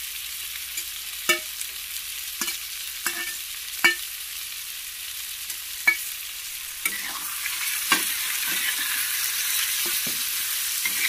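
Onion and tomato frying in oil in a pan, a steady sizzle, broken by sharp clinks of a metal spatula against a steel plate and the pan as curry leaves are scraped in and stirred. The sizzle gets louder about seven seconds in.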